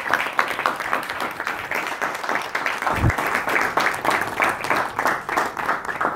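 Audience applauding: many people clapping steadily. There is one dull low thump about halfway through.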